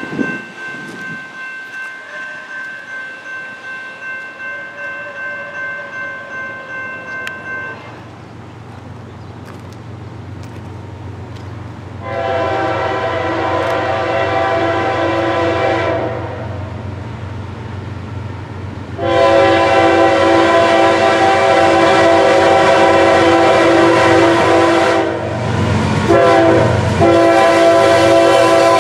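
Horn of an approaching Norfolk Southern GE ES44AC diesel locomotive sounding a multi-note chord in long blasts: a four-second blast about twelve seconds in, then a longer one from about nineteen seconds that breaks briefly and resumes near the end. Under it, a low rumble of the diesel and train grows louder as the train nears.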